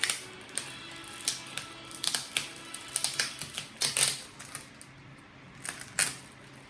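Collectible figure packaging being handled: an irregular string of sharp clicks, taps and short plastic rustles, with faint background music underneath.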